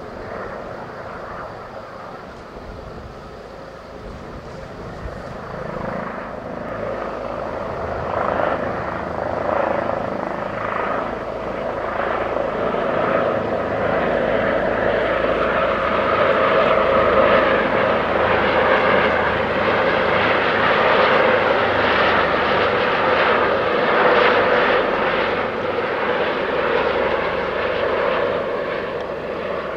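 Two Airbus H145M twin-turbine helicopters flying in low on approach: rotor beat and turbine noise that grows louder through the first half and eases a little near the end.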